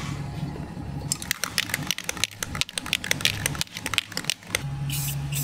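Aerosol spray-paint can being shaken, its mixing ball rattling in quick irregular clicks for about three seconds. A short hiss of spraying follows near the end, over a steady low hum.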